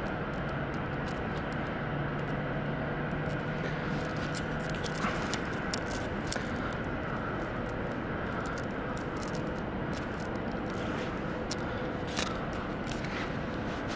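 Steady city background noise: a constant hum of distant traffic. A faint low drone runs through the first five seconds, and there are scattered light ticks.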